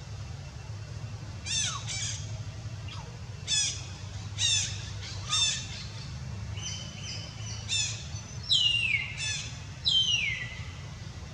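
A series of short, high-pitched animal calls, then two longer calls near the end that slide down in pitch, over a steady low rumble.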